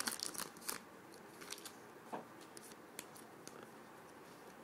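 Football trading cards being handled and sorted: soft rustles and light clicks of the stiff cards, busier in the first second, then a few scattered ticks.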